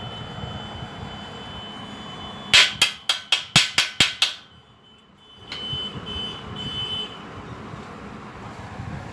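A chipping hammer striking a fresh stick weld on a steel truss joint to knock off the slag: about nine quick, ringing metal-on-metal blows in under two seconds, a little over two seconds in, over a steady background noise.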